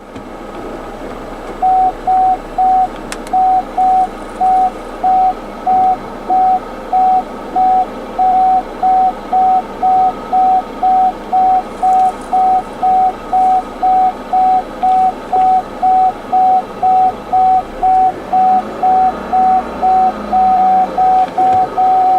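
A car's reversing beeper sounding a single steady-pitched beep about twice a second over a steady engine hum, starting a second and a half in. Near the end the beeps come quicker.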